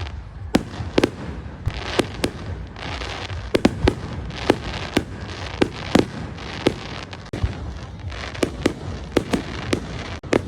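Fireworks going off: a quick, irregular string of sharp bangs, roughly two a second, over a steady hissing crackle.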